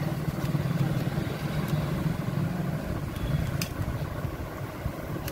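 A steady low engine-like rumble, with two light clicks from small plastic parts being handled, about one and a half and three and a half seconds in.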